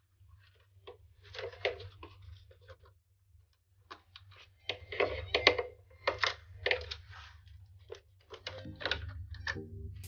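Hands working on an opened PlayStation 5's plastic chassis, handling and unclipping its thin internal wires: scattered small clicks and rustling scrapes of plastic and wire, over a low steady hum. Music begins faintly near the end.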